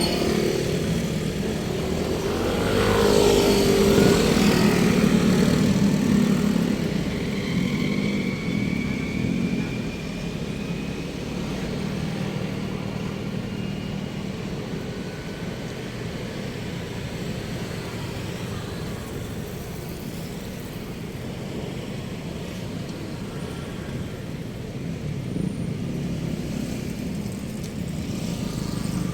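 Road traffic noise: a motor vehicle's engine passes close and loud from about two to seven seconds in, then steadier, quieter traffic continues.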